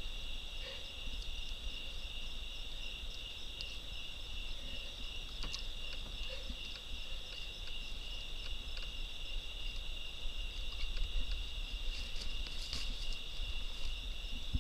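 A steady chorus of night insects, crickets trilling as one continuous high drone, with a few faint clicks around the middle and near the end.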